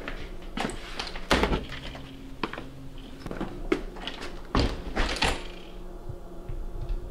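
Footsteps and a front door being handled: knocks and clicks as it is opened, then a thump as it swings shut about five seconds in.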